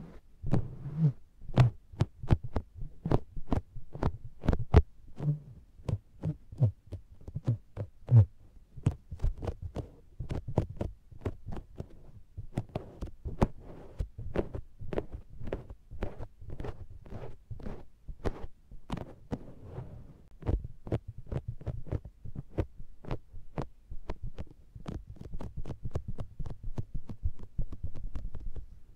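A makeup sponge patted and pressed against the silicone ear of a binaural microphone, making a quick run of soft, sticking pats with low thumps, about two to three a second. The heaviest thumps come in the first several seconds.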